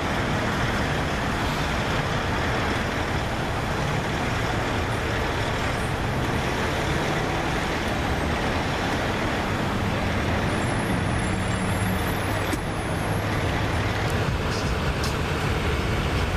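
Steady road traffic noise, with vehicle engines running and passing at a busy intersection.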